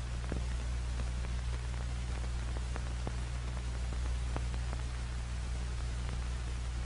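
Noise of an old optical film soundtrack: steady hiss and low hum, with faint scattered clicks and crackles.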